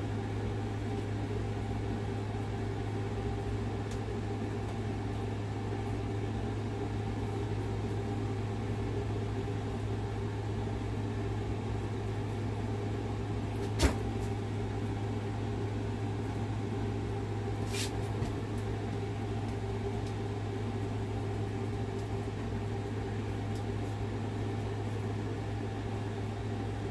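Steady low machine hum, like a small motor or fan running, with two brief clicks, one about halfway through and a fainter one a few seconds later.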